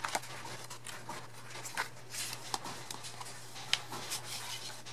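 Glossy pages of an album photobook and lyrics booklet being handled and turned: soft paper rustling with scattered light taps and clicks.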